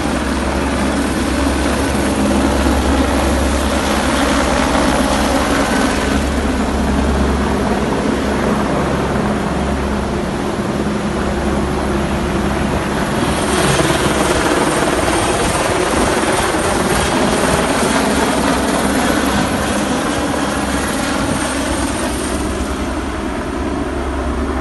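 Police helicopter flying overhead, its rotor beating steadily over a dense, continuous engine and rotor roar. It swells a little about halfway through.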